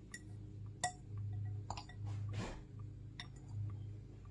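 A utensil clinking a few times against a mixing bowl, with a brief scrape in the middle, over a steady low hum.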